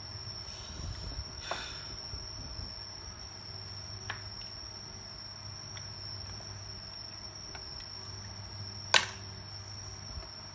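A steady high-pitched electronic whine over a low hum, with a few sharp clicks of small tools on a work surface; the loudest click comes about nine seconds in.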